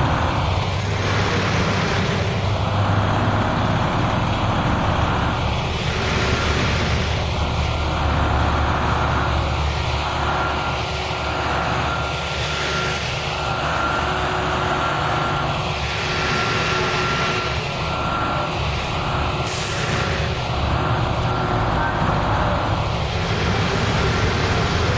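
Transit bus engines running close by, a steady low rumble with a faint steady whine and a whooshing that swells and fades every second or so as the buses move.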